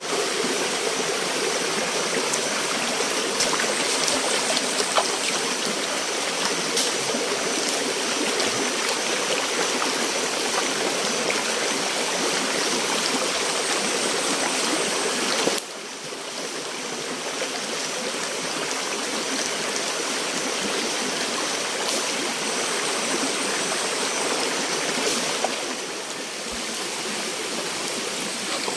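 Flowing water of a river or stream rushing steadily, a continuous even rush that drops abruptly in level about halfway through.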